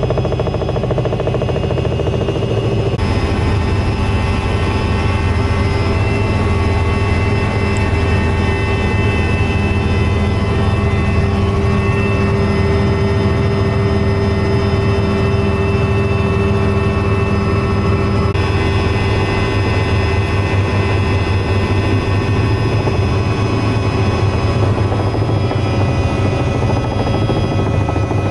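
Helicopter engine and rotor running steadily in flight, heard from inside the cabin as a continuous hum with steady tones.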